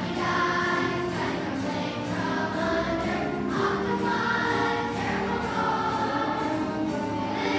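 A children's choir singing, holding long notes that change pitch from phrase to phrase.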